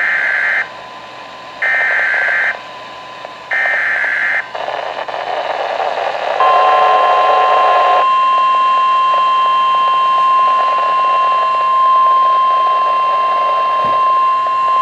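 NOAA Weather Radio Emergency Alert System activation for a severe thunderstorm warning, received over a weather radio: three short screeching bursts of SAME digital header data, each about a second long with a second between them. After a few seconds of radio hiss, the steady single-pitch 1050 Hz warning alarm tone starts about six seconds in and holds for about nine seconds.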